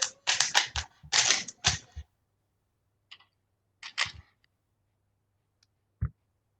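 Plastic Rubik's cube being turned quickly: a rapid flurry of clacking, scraping turns, then a few more turns a couple of seconds later and a single dull knock near the end.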